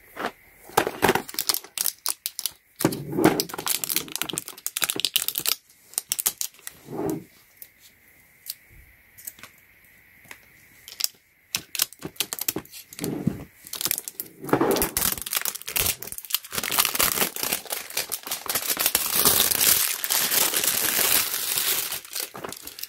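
Crinkling and tearing of plastic packaging film being cut with scissors and pulled off a clear plastic storage case. Scattered crinkles and clicks at first, then nearly continuous crinkling through the second half.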